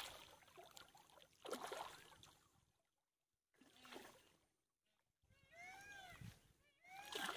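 A hooked fish thrashing at the surface, making short splashing bursts in the water about a second and a half apart. Near the end a quick run of short, high, rising-and-falling calls sounds.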